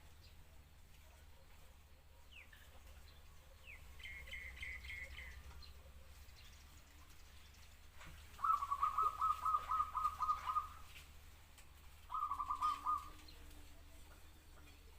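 Zebra dove cooing: a loud run of rapid staccato coo notes starting about eight and a half seconds in and lasting about two seconds, then a shorter run a second and a half later. A fainter, higher quick trill sounds about four seconds in.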